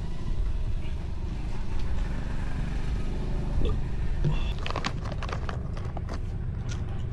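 A motor vehicle engine running with a low, steady rumble, with a few short clicks about five seconds in.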